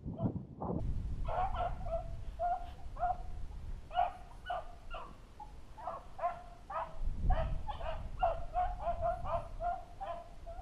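Beagles baying on a rabbit's trail: a quick run of short, pitched hound barks that comes in waves, with several voices overlapping.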